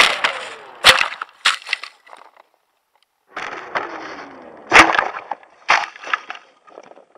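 Hobbyking Bixler 3 foam RC plane crash-landing in grass, heard through its onboard camera: air hiss and a falling whine from the electric motor and propeller winding down, broken by several hard knocks and scrapes as the airframe hits and tumbles. After a short gap the same crash plays again slowed to half speed, lower and drawn out, with its loudest knock about five seconds in.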